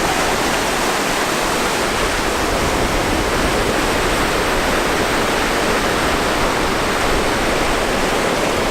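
Ocean surf, a steady rush of breaking and washing waves.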